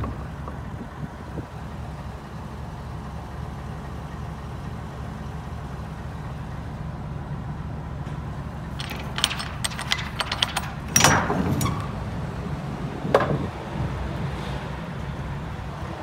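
A steady low rumble throughout, with a burst of metallic clicks and rattles about nine to eleven seconds in, a louder knock around eleven seconds and another near thirteen seconds, typical of handling inside a truck's metal cargo box.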